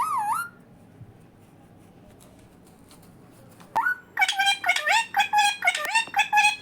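Indian ringneck parakeet calling: a short call with wavering pitch at the start, then, after a pause of about three seconds, a fast run of short, sharp squawks, several a second.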